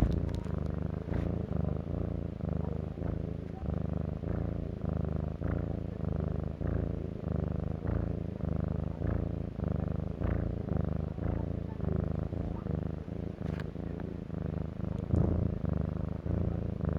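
Large cat purring: a low, steady buzz broken by brief, regular gaps.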